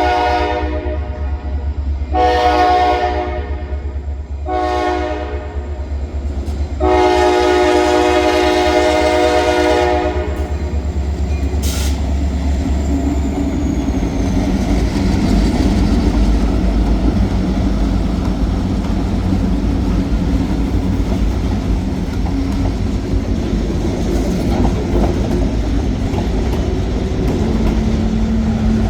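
Diesel freight locomotive horn sounding a series of blasts, two short ones followed by a long one held about three seconds, after which the train rolls past with the steady rumble of its diesel engines and wheels on the rails.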